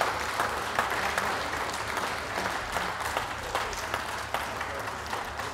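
Audience applauding: dense hand-clapping that slowly fades near the end.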